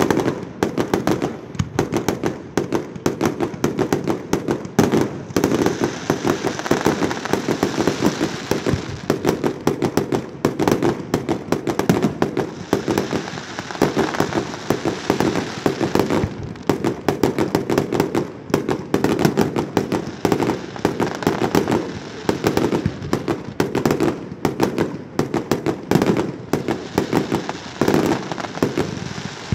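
Aerial fireworks bursting in quick, unbroken succession: a steady stream of bangs and crackles through the whole stretch.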